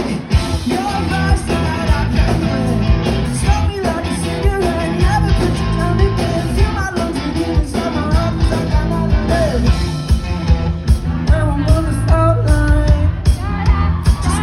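Rock band playing live, loud: a lead singer's vocal over a full band with steady drums and bass.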